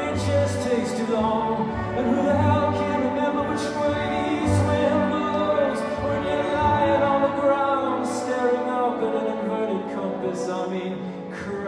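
Symphony orchestra and band playing live: an instrumental passage of sustained chords over a low beat about once a second.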